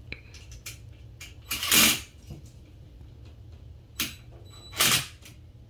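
DeWalt cordless impact driver run in three short bursts, the first the longest and loudest, driving the terminal screws on an electrical outlet as the neutral wire is fastened to its silver screw.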